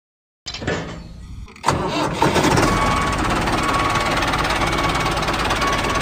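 A tractor engine starting and then running steadily and loudly: a rougher start for about a second, then settling into an even run.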